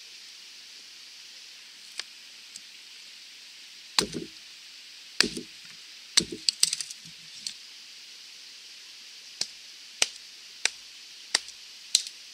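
Wetterlings Bushman axe splitting thin sticks of wood against a log: two light taps, then three heavier chops about a second apart followed by smaller cracks of the wood, then a quicker run of five sharp strikes near the end.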